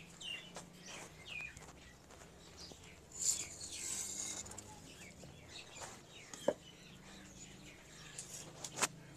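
Small birds chirping in short, falling calls, with a brief rustling hiss about three seconds in and two sharp knocks, one about six and a half seconds in and one near the end.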